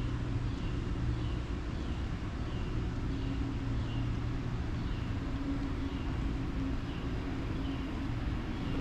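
Outdoor ambience: a steady low mechanical hum with two held low tones, overlaid by a short high chirp that repeats every second or so.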